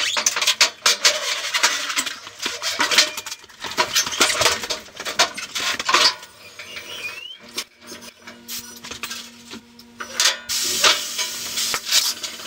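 Pneumatic motorcycle lift table being worked: air hissing with metal clanking and clicking from the lift, busiest through the first half, and a stretch of hissing again near the end.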